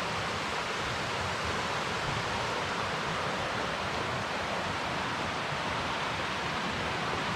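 Steady rushing of a creek tumbling over small waterfalls, an even hiss with no breaks.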